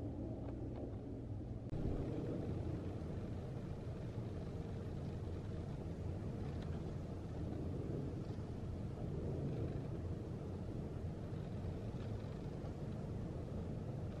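A steady low rumble with no distinct events. The background noise changes character about two seconds in.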